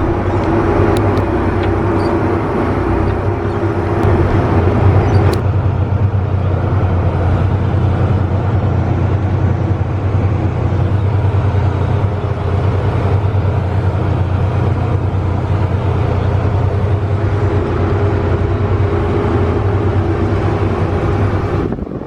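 Combine harvester running steadily with a deep engine hum. A higher tone in the machinery sound fades down about five seconds in.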